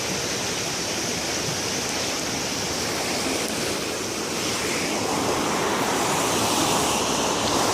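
Floodwater of a swollen creek rushing in a steady wash, a little louder in the last few seconds.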